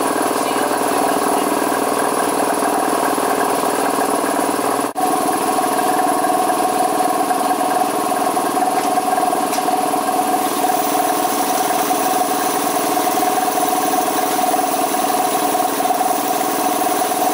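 Steady mechanical running noise from a homemade model steam engine driven by compressed air, with a brief break about five seconds in.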